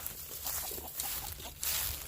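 Rustling in dry grass and brush, a string of swishes roughly half a second apart, over a low rumble of wind on the microphone.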